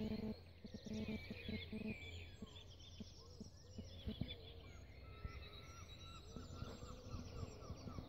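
Dawn chorus: several songbirds singing at once, with overlapping chirps and warbled phrases. From about five seconds in, one bird repeats a short note two or three times a second. A faint low hum runs underneath, most noticeable in the first two seconds.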